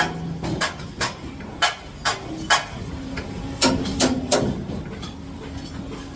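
Hammer blows on aluminium formwork: about nine sharp, irregular metallic strikes over the first four and a half seconds, then they stop, leaving a faint steady hum.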